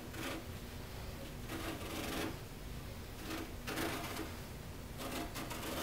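Razor blade slicing through the excess carpet around the top edge of a ball-polisher platter: about four short scratchy cutting strokes, roughly a second apart.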